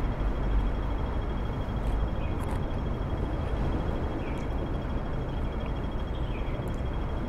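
Steady outdoor background noise, a low rumble with hiss, with a few faint short high chirps that fall in pitch.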